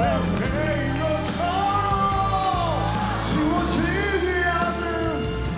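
A man singing a ballad into a microphone over a backing track, holding long notes that bend up and down in pitch.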